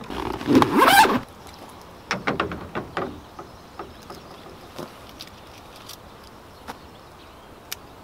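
A tool bag's zipper drawn shut in one quick rasping pull, rising as it goes. It is followed by a few light clicks and handling rustles, then faint scattered ticks.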